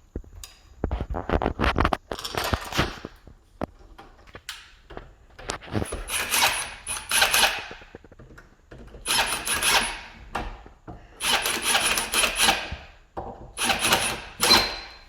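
Power drill driving screws in short runs, about six of one to two seconds each with short pauses between. The screws fasten a smart door lock's back plate to the door.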